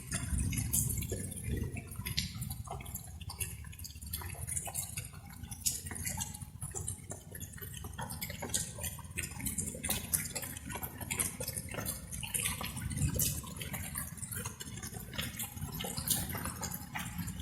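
Light rain falling, with many separate drops dripping and ticking at an irregular pace over a steady low rumble.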